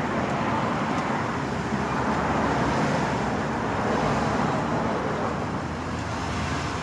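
Car engine running as the car moves slowly forward, with a steady rushing noise over it.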